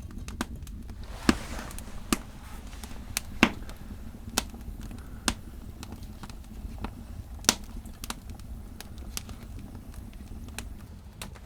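Wood fire crackling in a stove: irregular sharp pops and cracks over a low steady rumble, the loudest pops about a second, three and a half and seven and a half seconds in.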